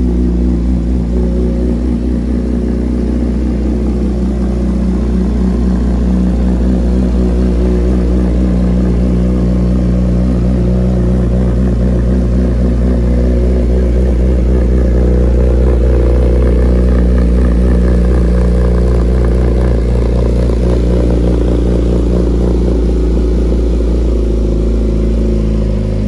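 2008 Yamaha R6's inline-four engine idling steadily through an M4 aftermarket exhaust while warming up after a cold start.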